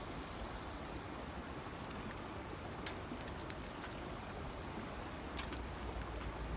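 Skewered meat sizzling on a small wire grill over a fire, a steady hiss with sharp pops and crackles scattered through.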